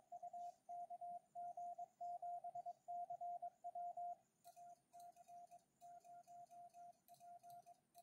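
Morse code tones at one steady pitch from a Yaesu FT-991A transceiver, spelling out call signs. A louder received signal (KG7CW) plays first. About four and a half seconds in, a quieter sidetone follows as ACØPR is sent by hand on a Bencher BY-2 paddle, with the paddle's light clicks mixed in.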